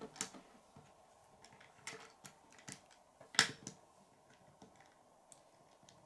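Plastic Lego bricks clicking as they are pressed together and set down on a wooden table: a handful of scattered clicks, the loudest about three and a half seconds in.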